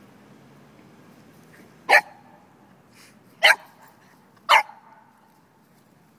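A dog barking three short, sharp barks, about two seconds in, at three and a half seconds, and a second later: play barks while wrestling with another dog.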